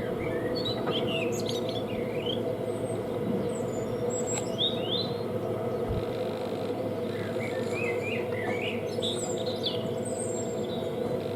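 Small birds chirping in short bursts of quick sliding notes, over a steady low hum.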